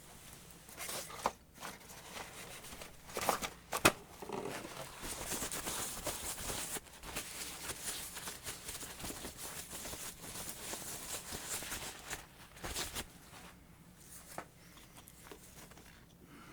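Handling noises: a few sharp clicks and knocks, the loudest just before four seconds in, then about eight seconds of rubbing and rustling, followed by a couple more clicks.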